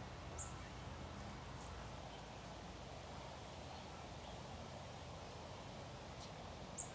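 Quiet open-air ambience: a steady low rumble and faint hiss, with two brief high-pitched chirps, one about half a second in and one near the end.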